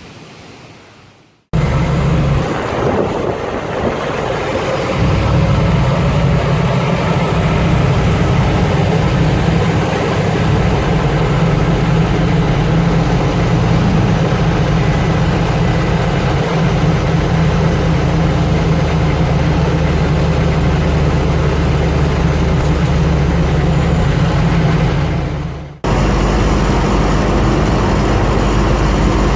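Humvee's diesel engine running steadily. It starts abruptly about a second and a half in and cuts off sharply near the end, then resumes.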